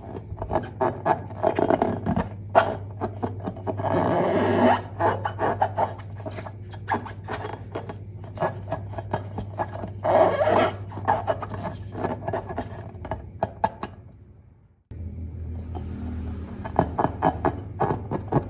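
Hands kneading and stretching glossy slime, making rapid sticky clicks and crackling pops with a few louder squelches. The sound breaks off briefly about fifteen seconds in, then resumes.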